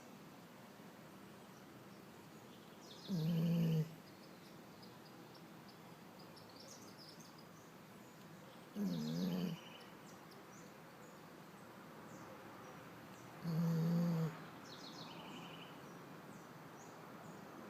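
Pit bull snoring in its sleep: three short, pitched snores about five seconds apart, each under a second long. Songbirds chirp faintly in between.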